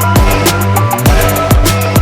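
Background electronic dance music with a fast beat: a kick drum about twice a second over a steady bass line and rapid hi-hats.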